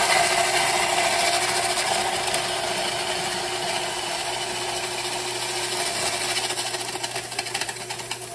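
KitchenAid stand mixer running an Airpro slicer-shredder drum attachment as it shaves ice cubes: a dense grinding crunch of ice over the steady hum of the mixer motor. It grows gradually quieter toward the end.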